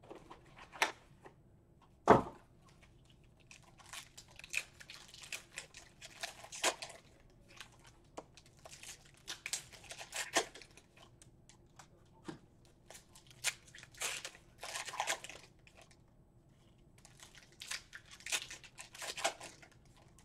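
Cardboard trading-card boxes being torn open and packs handled: repeated bursts of tearing and rustling with short pauses between, and a single sharp knock about two seconds in.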